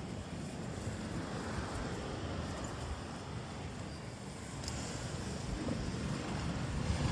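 Steady outdoor noise dominated by wind buffeting the microphone, a flickering low rumble with a fainter hiss above it.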